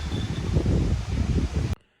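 Gusty wind noise with rustling, stopping abruptly near the end.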